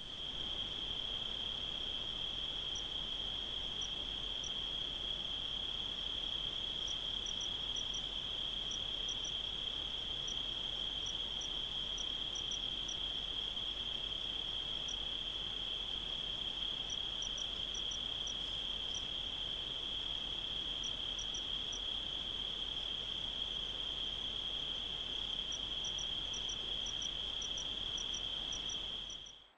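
Night insects trilling in one continuous, unbroken chorus, with faint scattered short chirps higher up.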